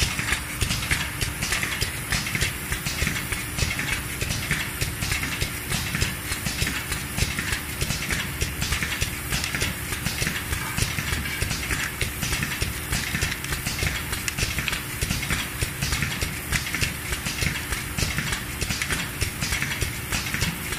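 PVC shrink-capsule making machine running: a steady mechanical clatter of regular clicks, several a second, over a constant hum.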